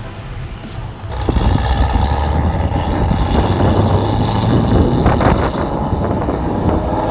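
A road vehicle driving, with steady engine and road rumble that jumps sharply louder about a second in and stays loud.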